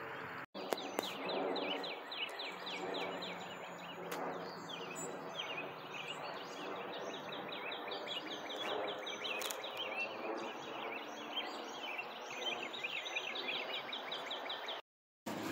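An evening chorus of rapid, high chirps, about five a second, with a fainter low murmur underneath. It drops out for a moment just after the start and again near the end.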